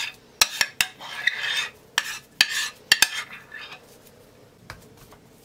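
Metal spoon scraping mashed potato out of a glass bowl and knocking against the glass, a handful of sharp clinks between short scrapes. It goes quiet for about the last second and a half.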